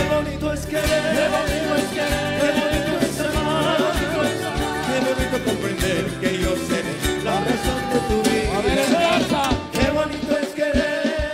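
Live band music: strummed and plucked guitars keep a steady rhythm under a wavering melody line, with no sung words.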